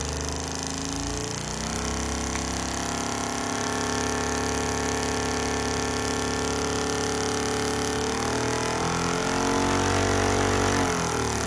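Motor-driven spark plug test machine being run up in speed: a steady mechanical hum and whine that rises in pitch over the first couple of seconds, holds steady, then shifts pitch again near the end.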